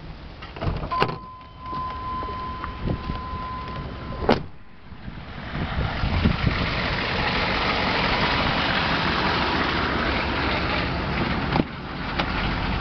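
A truck door clicks open about a second in and a steady electronic warning tone sounds until the door shuts with a thud about four seconds in. After that comes a loud, steady noise from idling GM 6.5 L turbo diesel engines heard in the open, and another door latch clicks near the end.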